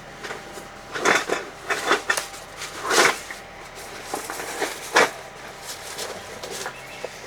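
Things being handled and moved about: a run of separate rustles and knocks, the loudest about three seconds in and another sharp one at five seconds.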